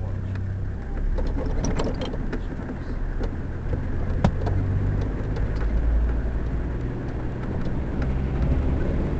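Safari 4x4's engine running as it drives slowly, a steady low rumble that rises and falls, heard through the roof with scattered rattles and knocks, and one sharp knock about four seconds in.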